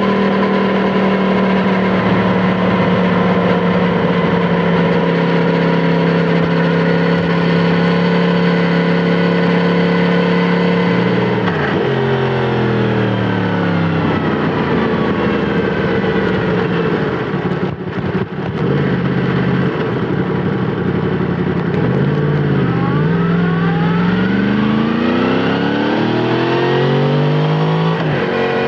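Yamaha MT-10 SP's crossplane inline-four engine through an Akrapovic titanium slip-on exhaust, running at steady revs while the bike rides along. About halfway the revs fall off as it slows, then near the end the engine pitch climbs in a few rising sweeps as the bike accelerates through the gears.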